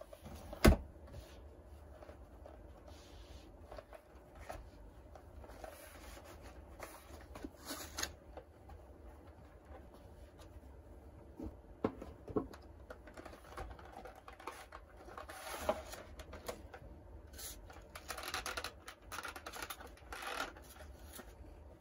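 Cardboard box, foam insert and clear plastic packaging rubbing and rustling as they are handled. A sharp knock comes about a second in, with a few lighter knocks later and a denser run of plastic rustling near the end.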